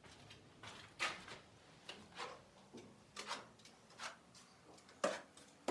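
A series of short scrapes and knocks, about one a second, with the loudest near the end.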